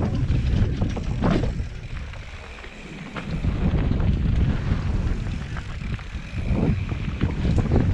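Wind buffeting a helmet-mounted camera's microphone during a fast mountain-bike descent, with tyre noise on loose gravel and clicks and rattles from the bike. The wind eases for about a second, two seconds in.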